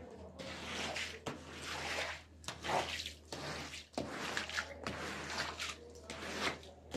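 Rubber floor squeegee dragged in repeated strokes across a soaked rug, wet swishing as it squeezes the water out, about one stroke a second.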